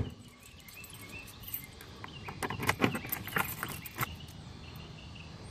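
A handful of light clicks and taps, most of them between about two and four seconds in.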